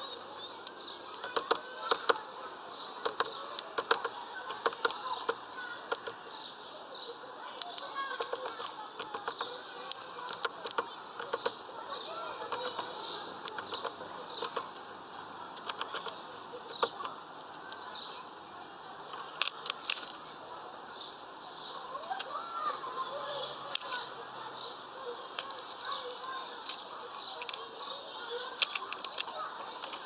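Small birds chirping and calling around a seed feeder, over frequent sharp clicks and taps of a finch pecking and husking sunflower seeds on the feeding tray.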